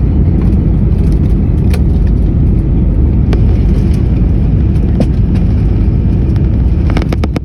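Steady, loud low rumble inside the cabin of an Airbus A321 taxiing after landing, from the engines and the wheels on the taxiway. There are occasional sharp clicks and rattles, with a quick cluster of several clicks near the end.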